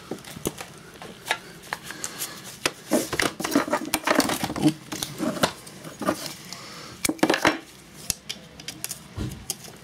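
Metal hand tools and screws clinking and knocking as the cover over the valve springs of a Briggs & Stratton 2hp engine is unscrewed. The clicks and knocks are irregular and busiest in the middle.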